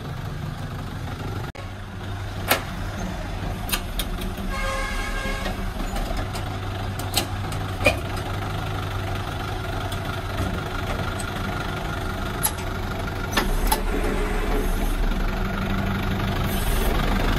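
Hyundai HD120SL crane truck's diesel engine idling steadily, with a few sharp metal knocks and a brief high tone about five seconds in. The engine note grows louder about 13 seconds in.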